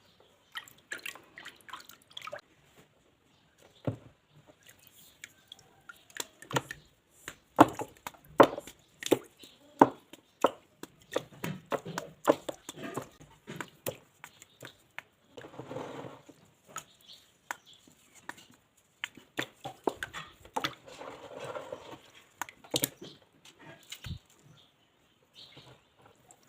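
Chunks of dried mud being crushed and crumbling, with irregular crunches and sharp cracks and a few louder snaps. Two longer stretches of dense crumbling come about a third and four-fifths of the way through.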